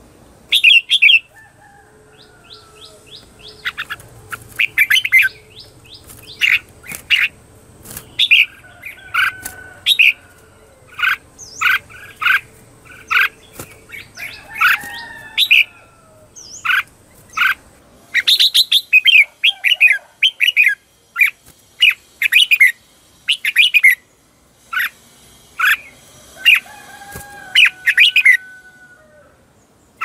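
Red-whiskered bulbul singing its challenge song: loud, sharp chirped phrases repeated again and again, with a few softer whistled notes between them.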